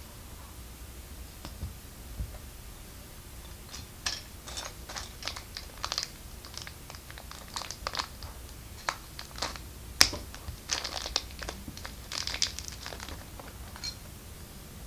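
Plastic LEGO pieces being handled and snapped together: a run of small, irregular clicks and rattles starting a few seconds in, with one sharp, loud click near the middle.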